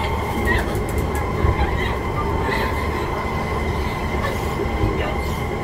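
Kawasaki Heavy Industries C151 metro train heard from inside the car while running at speed between stations: a steady rumble of wheels on rail with steady high-pitched tones and a faint wheel squeal, and a few light clicks.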